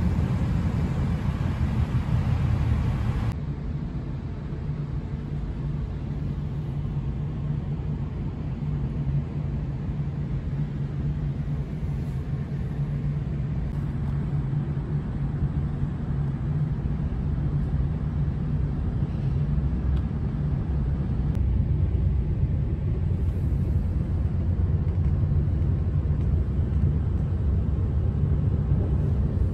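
Passenger train heard from inside the carriage: a steady low rumble of the running train. It drops suddenly about three seconds in, carries a steady low hum through the middle, and grows louder again in the last third.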